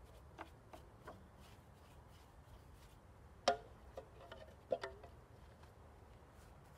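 A few scattered light knocks and clicks over a quiet background, the loudest about halfway through and another close pair a second later.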